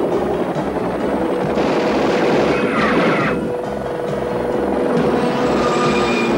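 Helicopter in flight, its rotor thudding in a steady, regular beat, with a music score mixed in. A short falling sweep comes about three seconds in.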